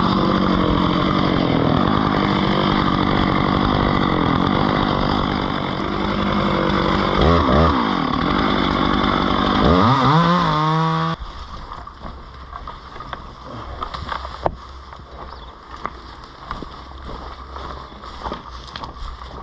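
Chainsaw running steadily, rising in pitch twice as it is revved, then cutting off suddenly about eleven seconds in. After it stops there are a few faint knocks and clicks.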